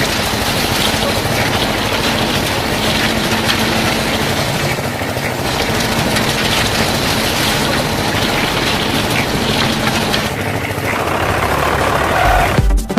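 A small motor-driven machine running steadily with a constant hum, stopping abruptly near the end.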